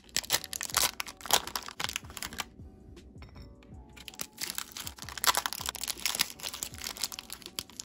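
Plastic ice cream bar wrappers crinkling and tearing as they are opened, in spells of sharp crackles that are densest in the second half.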